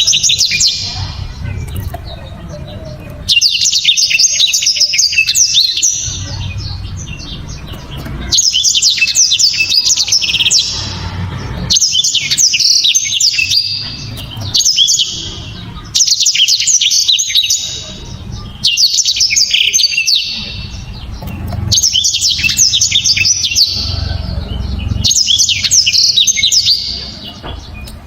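Black-throated canary (blackthroat) singing loud, rapid, dense song phrases of one to three seconds each, about eight in a row with short pauses between. A low rumble is heard in the gaps between phrases.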